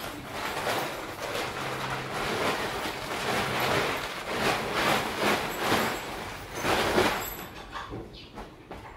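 Camping tent fabric rustling and flapping as it is shaken out and spread over the floor, in a run of swishes that die down near the end.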